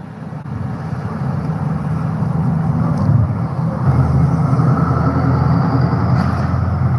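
Low, steady rumble of road traffic outdoors, growing louder over the first few seconds as if a vehicle is approaching.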